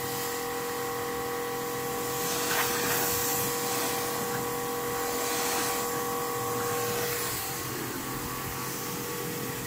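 Kärcher electric pressure washer running, its motor whine under the steady hiss of the high-pressure water jet on the sprayer's tank and frame.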